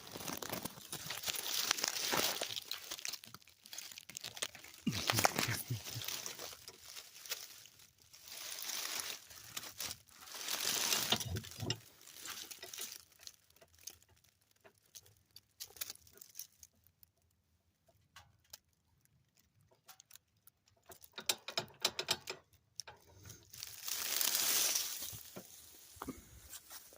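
Rough scraping strokes of a hand tool working wood, each a second or two long, repeated with pauses between them and a quieter stretch of scattered clicks in the middle.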